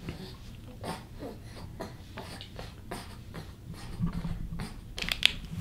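Faint scattered clicks and rustles of a clear plastic lure package being handled, with a sharper, louder click a little after five seconds.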